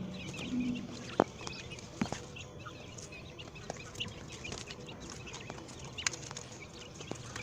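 Quail calling softly: scattered short high chirps, with a low clucking in the first second and a few sharp clicks, the loudest about a second in.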